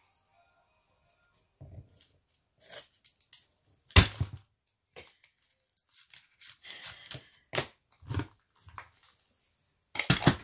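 Small craft scissors snipping paper, with rustling and handling clicks of the paper sheet between cuts; a sharp click about four seconds in is the loudest sound.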